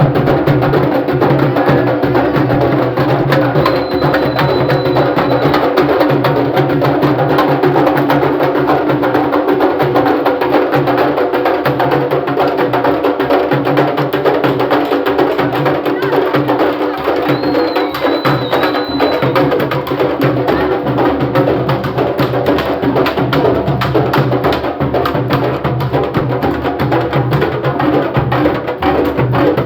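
Candombe drum ensemble (tambores chico, repique and piano) playing a dense, unbroken rhythm: hand and stick strokes on the drumheads, with the sticks clacking on the wooden shells.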